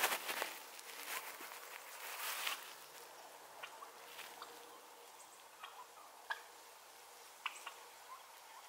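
Faint scattered soft ticks and rustles from wild turkeys feeding on the ground, with a brief louder rustle at the very start.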